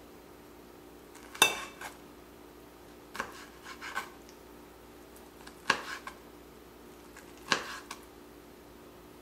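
Chef's knife slicing through a steamed roll of colocasia (taro) leaves and striking a plastic cutting board: four cuts about two seconds apart, each followed by a lighter tap.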